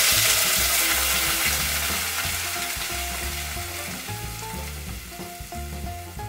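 Blended green tomatillo and poblano salsa sizzling as it pours into hot oil in a saucepan, the sizzle loudest at first and fading gradually as the pan fills.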